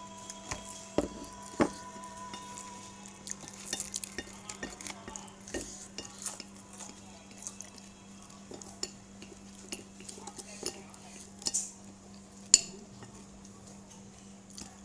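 Cutlery clinking and scraping against a plate while eating, with scattered sharp clicks, the loudest about twelve and a half seconds in, over a steady low hum.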